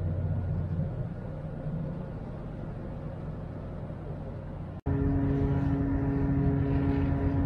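Ferry engines droning steadily, heard on deck. A little before five seconds in, the sound breaks off for an instant and comes back louder, with a steady hum of several pitches over the drone.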